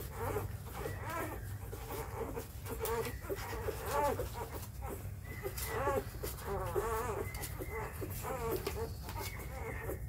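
Four-day-old Labrador puppies squeaking and whining in short rising-and-falling cries, several a second and overlapping, as they compete to suckle from their mother.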